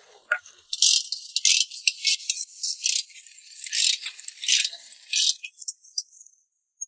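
Irregular rattling and scraping of hard parts being worked loose, a dozen or so short bursts over about five seconds, while the wiper arm and cowl clips come off a Ford Focus to reach the shock absorber mount.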